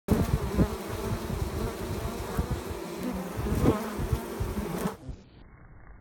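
Honeybees buzzing loudly at a hive entrance, many flying close by with wavering wingbeat tones. The buzz cuts off abruptly about five seconds in, leaving only a faint low background.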